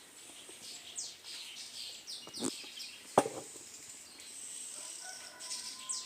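Birds chirping: short, high, quickly falling chirps, with two sharp knocks about two and a half and three seconds in.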